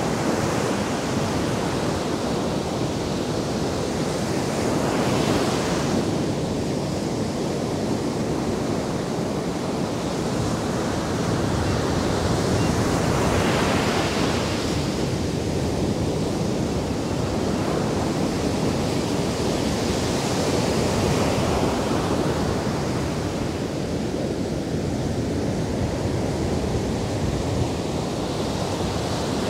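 Atlantic surf breaking on a sandy beach and washing up the shore as a steady rush, swelling as a wave breaks every seven or eight seconds.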